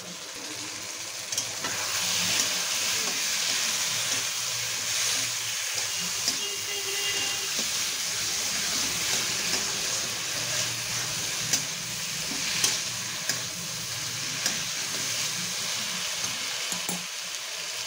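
Potato, pointed gourd and pumpkin pieces with spice paste sizzling in hot oil in a metal kadai while they are stirred and sautéed with a metal spatula. The frying hiss is steady, with short scrapes and taps of the spatula against the pan every second or two.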